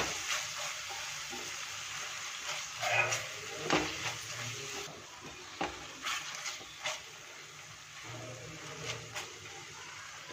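Onion, tomato and spice masala with curd sizzling in oil in a steel pan, stirred and scraped with a silicone spatula, with a few light scrapes against the pan. The masala is being fried down until its oil separates.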